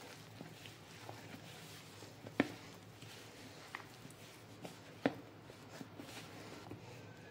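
Hands kneading a soft flour dough in a plastic bowl: faint squishing with a few light knocks against the bowl, the two clearest about two and a half and five seconds in.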